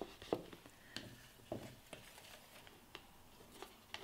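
Faint scattered taps and rustles of torn magazine paper being picked up and pressed by hand onto a glue-covered plastic pot, about half a dozen small clicks.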